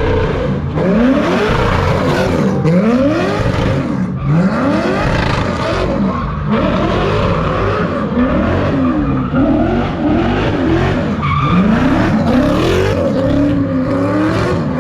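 A car doing donuts: its engine revs up and down over and over while the tires spin and squeal continuously.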